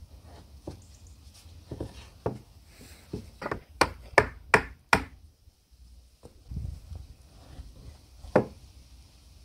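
Mallet striking the solid oak frame of a carpenter's bench, knocking its joints together: a few softer knocks, then a quick run of about six sharp blows, roughly three a second, and one more blow near the end.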